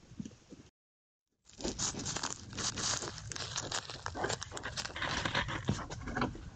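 Dense, irregular crackling and rustling of dry vegetation close to a trail camera's microphone. It starts abruptly about a second and a half in, after a moment of total silence.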